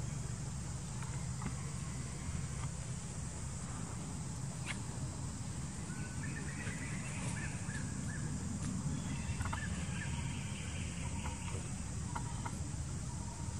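Outdoor woodland ambience: a steady insect drone with short runs of chirping bird calls about halfway through and again later, over a low steady rumble, with a few faint clicks.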